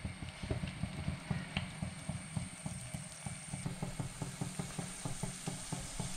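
Masala-coated soya chunks deep-frying in hot oil: a steady sizzle with rapid, irregular crackling.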